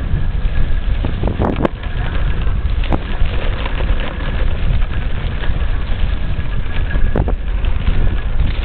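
Wind buffeting the camera's microphone as it moves fast, a loud steady rumble, with a few sharp knocks about one and a half, three and seven seconds in.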